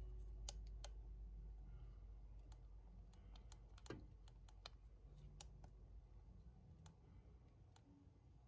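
Faint, irregular clicks of a thumb pressing the buttons and dial of a Godox XPro-S wireless flash trigger, with a low hum underneath.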